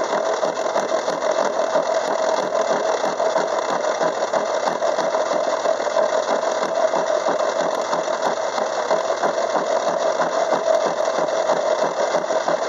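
Craftsman 6-inch metal lathe running steadily, its spinning gear cutter taking a pass through a steel gear blank to cut the space between two teeth. One strong steady tone sits over a fast, even flutter.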